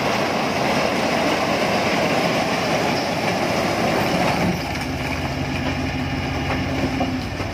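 A load of bricks clattering and sliding off a tipped tractor trailer onto the ground, over the Iseki farm tractor's engine running. About four and a half seconds in the clatter stops, leaving the engine idling steadily.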